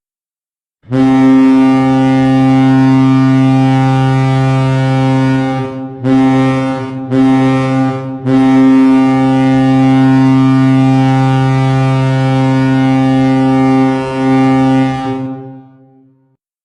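NHL arena goal horn blowing one long, low, steady blast, briefly broken three times in the middle, then fading out near the end.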